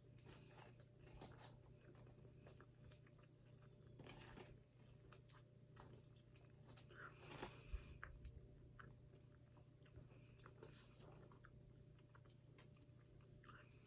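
Faint close-up chewing of carne asada fries: soft wet mouth clicks and small crunches, a little louder about seven to eight seconds in, over a steady low hum.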